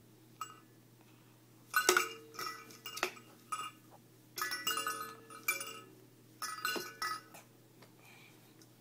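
Roly-poly chicken toy chiming and clinking in short clusters as a baby tips and handles it, loudest about two seconds in.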